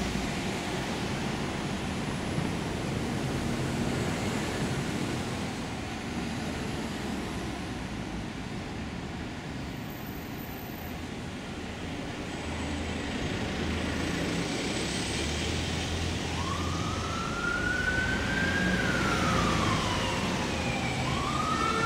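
Busy road traffic, with London double-decker buses, vans and cars passing close by, a steady mix of engine and tyre noise. About three-quarters of the way through, an emergency-vehicle siren starts wailing: one slow rise and fall, then a second rise beginning at the very end.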